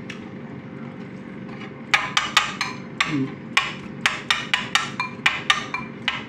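Metal spoon stirring and scooping in a ceramic bowl of thick cheese dip, clinking against the bowl in quick repeated strikes, about three a second, starting about two seconds in.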